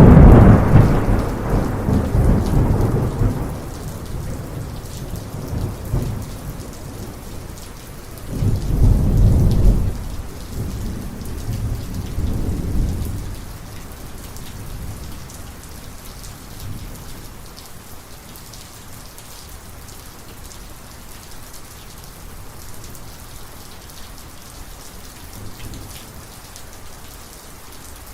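Heavy rain falling steadily in a thunderstorm, with a loud clap of thunder at the start that rumbles away over a few seconds, a second strong rumble about eight seconds in, and a weaker one a few seconds after that; then rain alone.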